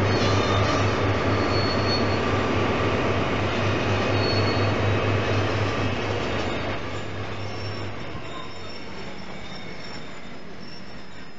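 Diesel locomotive hauling a passenger train slowly away: its engine throb is loud at first and fades out about seven seconds in. The coaches roll on with high-pitched wheel squeal.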